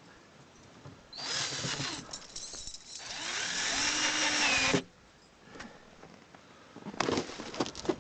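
Power drill running in two bursts, a short one about a second in and a longer one of nearly two seconds whose whine sags and recovers under load, as when driving a screw. Clicks and rattles of handling follow near the end.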